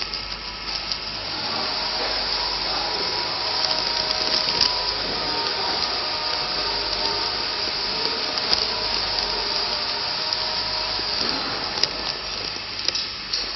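Clear plastic bag of loose tea crinkling and rustling in the hand, with scattered small crackles, over a steady whirring noise.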